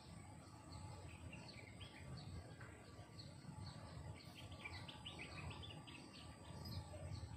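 Birds chirping in quick series of short notes, busiest about four to six seconds in, over a steady thin high insect drone and a low rumble of wind.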